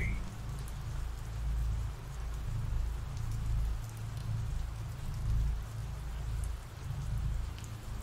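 Rain sound effect: steady rain falling, with a low rumble swelling and fading underneath.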